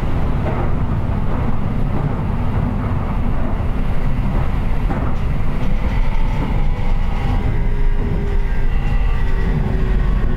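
Toei Type 5500 subway train running, heard from inside the car: a steady rumble of wheels and running gear. In the second half faint steady whining tones come up from its Mitsubishi full-SiC VVVF traction inverter as it nears Nakanobu station.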